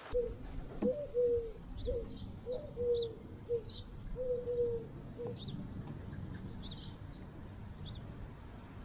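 Pigeons cooing, a string of short low coos over the first five seconds or so, with short high bird chirps scattered through.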